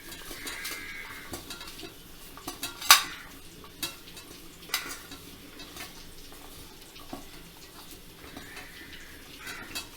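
Spiced mashed-potato filling being stirred in a bowl, a soft scraping with scattered clinks of the utensil against the bowl. The loudest clink comes about three seconds in.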